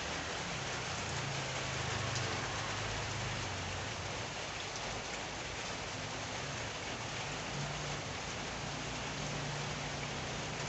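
Steady rain falling and pattering on the surroundings, an even hiss with no let-up. A faint low hum comes and goes underneath.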